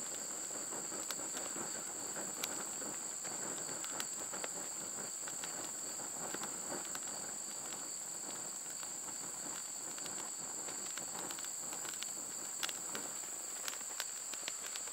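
A steady high-pitched insect chorus, cricket-like, drones throughout, while a small twig fire gives off scattered light crackles and pops.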